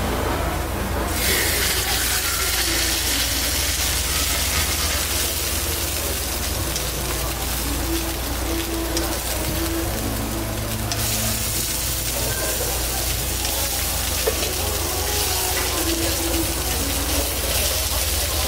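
Chicken pieces sizzling on a hot flat steel griddle: a steady frying hiss that swells about a second in, eases about eleven seconds in and rises again briefly a few seconds later. There is a single sharp click near the middle.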